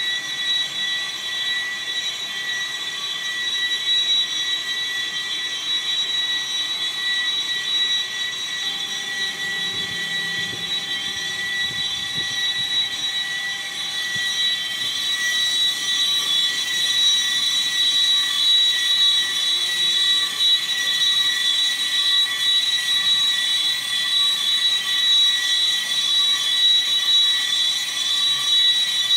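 Lathe-type cylinder boring machine running, its boring bar turning inside an engine cylinder to cut the bore, with a steady high whine over the machine noise. It grows a little louder in the second half.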